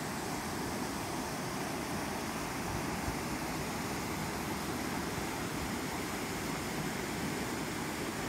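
Steady rushing of whitewater spilling over rock ledges in a small river cascade.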